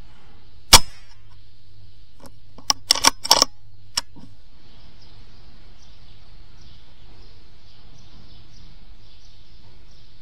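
Air rifle shot: a single sharp crack about a second in, followed a couple of seconds later by a quick run of sharp clicks and one more click shortly after. Faint bird chirping carries on through the rest.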